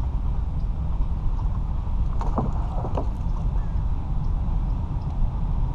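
A hooked bass splashing at the water's surface beside a kayak as it is brought to the net, a few short splashes about two seconds in. Under it runs a steady low rumble of wind on the microphone.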